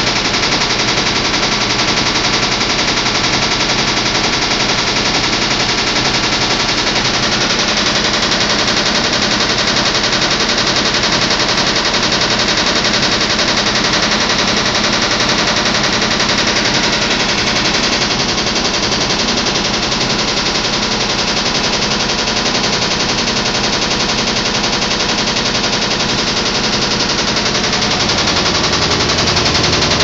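Top-loading washing machine running with a loud, fast, continuous rattling knock that keeps the same pace throughout.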